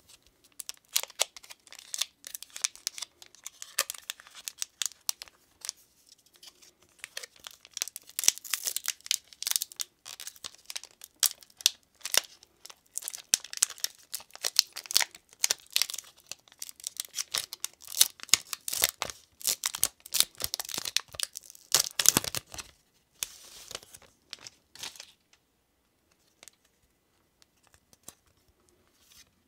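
Foil wrapper of a Pokémon trading card booster pack crinkling and being torn open by hand: a long run of sharp crackles and rips. The loudest rip comes about three-quarters of the way through, and only a few faint card clicks follow it.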